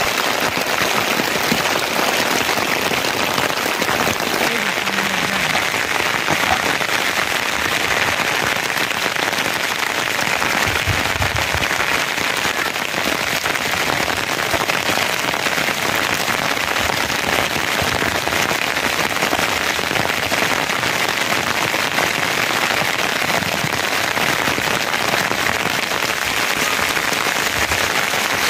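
Steady rain falling: a continuous, even hiss of pattering drops that does not let up.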